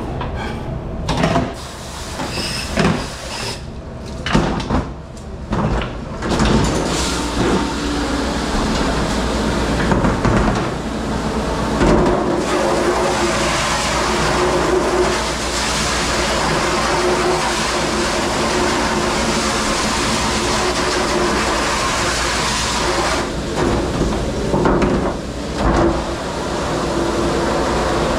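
Metal bakeware clattering against a stainless-steel sink, then a long, steady hiss of a pre-rinse spray hose blasting a sheet pan, with a few more knocks of pans near the end. A commercial dish machine hums low underneath.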